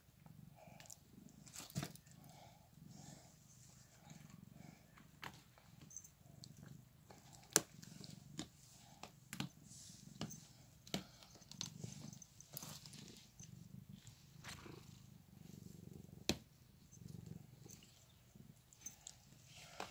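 Domestic cat purring while being stroked, a low rumble that swells and fades with each breath, with a few sharp clicks over it.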